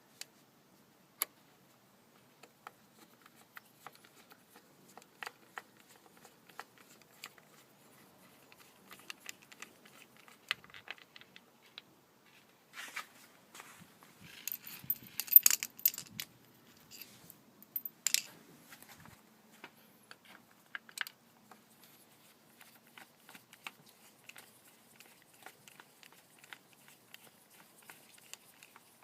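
Scattered small clicks, ticks and metallic rattles of hand tools and loose bolts as the valve-cover bolts are undone with a 10 mm socket wrench, with a louder run of rattling about halfway through.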